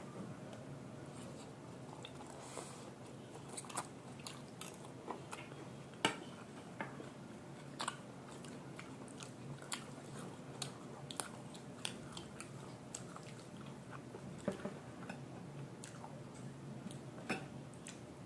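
Close-up eating sounds of chow mein noodles and momo dumplings: chewing and biting, with irregular short wet smacks and clicks, the sharpest about six seconds in.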